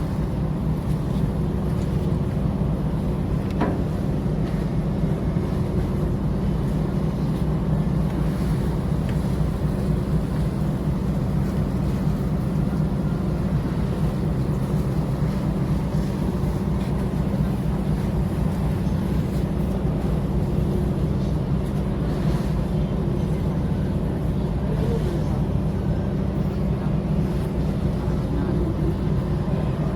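Steady low drone of a car ferry's engines, an even hum that holds without change.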